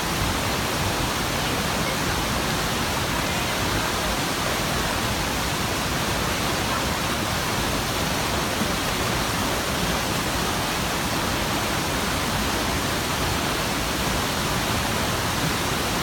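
Waterfall pouring into a pool among basalt columns: a steady, even rush of falling water.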